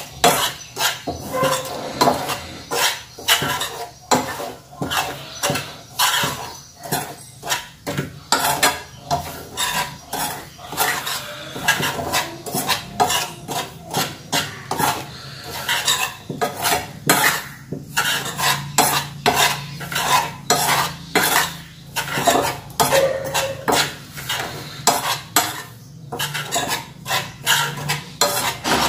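Steel spoon stirring and scraping dry flour mix around a metal frying pan, a couple of strokes a second, clinking against the pan. The flour is being dry-roasted over a low gas flame.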